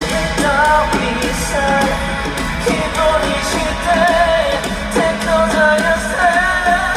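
Live rock band playing with a male lead vocal singing over guitars and drums.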